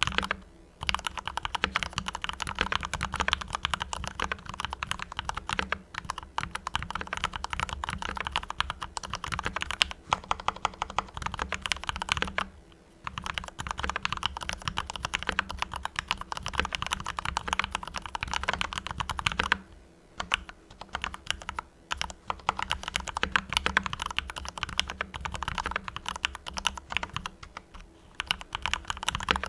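Fast, continuous typing on a Mars Pro mechanical keyboard with fully lubed Cherry MX Red linear switches: a dense run of keystrokes with a few brief pauses.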